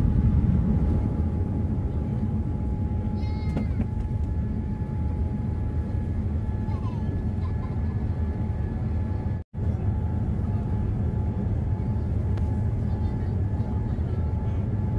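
Airliner cabin noise: a steady low rumble with a thin constant whine above it, cutting out for an instant about nine and a half seconds in. A few faint high squeaks sound over it.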